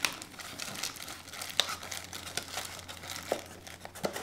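Plastic packaging crinkling and cardboard box parts rustling as items are handled inside a cardboard product box, with scattered small clicks and taps.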